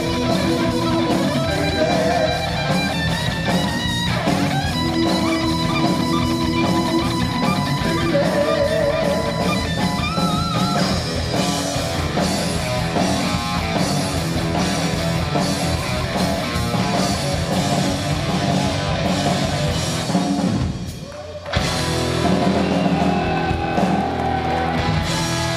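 Heavy metal band playing live: electric guitar over a drum kit. Near the end the music drops out briefly, then the band comes back in.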